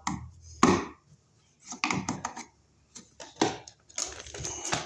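Hand work at an electrical wall box: scattered clicks, knocks and rustles in irregular short bursts.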